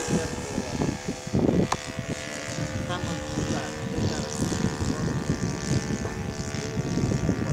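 Thunder Tiger 52 four-stroke glow engine of an RC model plane running at a steady pitch in flight, a droning hum with propeller noise. Low rumbling buffeting on the microphone comes and goes over it.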